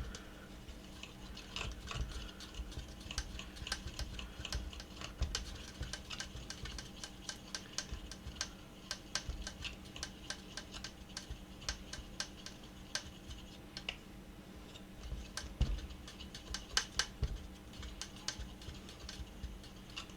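Many light, irregular clicks and taps of a coffee grinder's parts being handled and worked on by hand, several a second.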